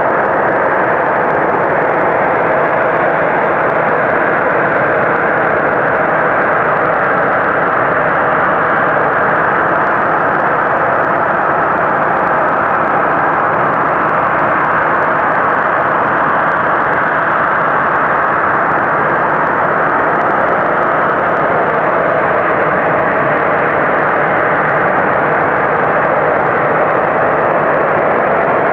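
Loud, unbroken droning noise of unknown origin, the 'strange sound' reported in McAlester in 2012, so loud it rings the ears. It holds steady throughout, a rushing roar with no rhythm or clear pitch.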